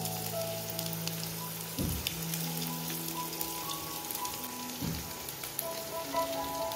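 Hot oil sizzling and crackling in a frying pan as spoonfuls of chicken-and-corn batter fry, under background music with held notes and a soft low thud about every three seconds.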